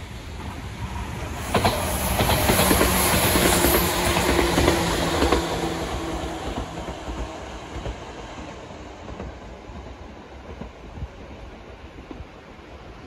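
Izu Kyuko electric train passing close by, wheels clicking over the rail joints under a steady motor hum. It is loudest a couple of seconds in, then fades as the train runs away along the track.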